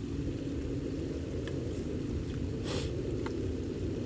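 Strong wind buffeting the microphone, a steady low rumble. About two-thirds of the way through there is a short hiss, and a few faint clicks.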